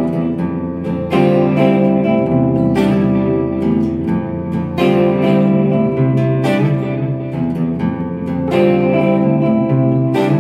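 Guitar duet on two hollow-body electric guitars, archtop and semi-hollow, played through small amplifiers. Ringing chords and a melody line, with fresh strokes about every one and a half to two seconds.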